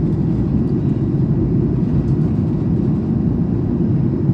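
Steady low cabin roar of an Airbus A220 airliner in flight, heard from inside the passenger cabin: engine and airflow noise, even in level throughout.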